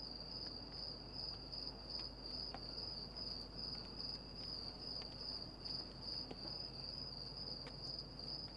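Crickets chirping in a steady, pulsing high trill, with a few faint clicks scattered through it.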